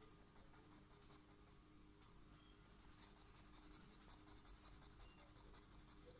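Faint scratching of a felt-tip marker on paper in rapid short strokes while colouring in, busier from about halfway through.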